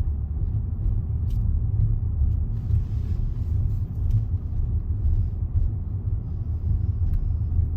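Steady low rumble of a car driving along, with engine and tyre noise heard from inside the cabin.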